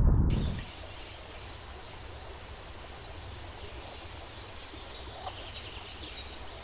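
Birds calling faintly over a low, steady rumble.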